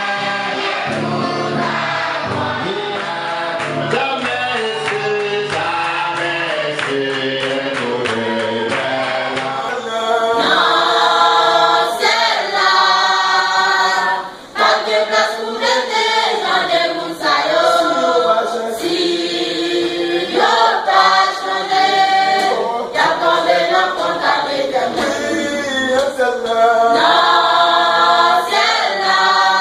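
A choir singing together. About ten seconds in, the singing gets louder and brighter.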